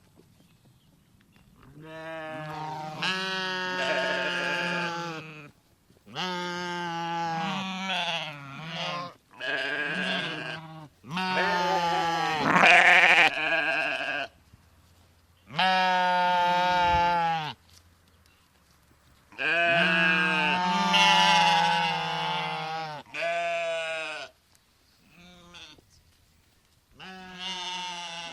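Sheep bleating: a series of about nine separate drawn-out bleats, some lasting several seconds, with short pauses between them.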